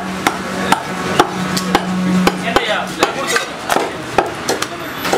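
A large curved knife chopping and cutting stingray flesh on a wet chopping block, with sharp strikes about twice a second.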